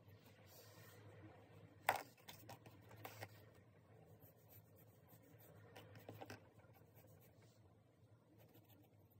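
Faint scratching of a graphite pencil sketching on sketchbook paper, with a sharp tap about two seconds in and a few softer taps around three and six seconds.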